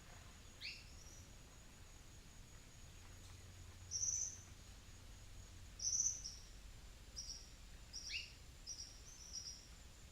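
Wild birds calling: a series of short, high calls, loudest about four and six seconds in, with an upward-sweeping call near the start and another about eight seconds in, then a quick run of short calls near the end. A faint steady high-pitched buzz runs underneath.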